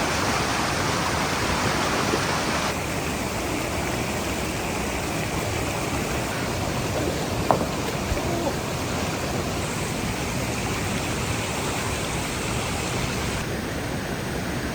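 Steady rush of a waterfall, its tone shifting slightly about three seconds in and again near the end, with two faint knocks about halfway through.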